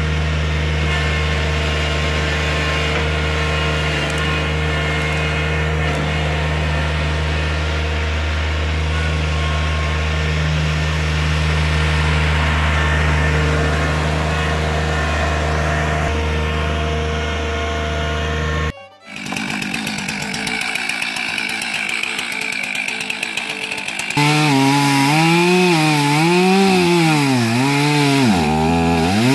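Compact tractor's engine running steadily as the tractor drives past, then after a cut, a chainsaw running and cutting through a log. About five seconds from the end a louder wavering tone joins, rising and falling about once a second.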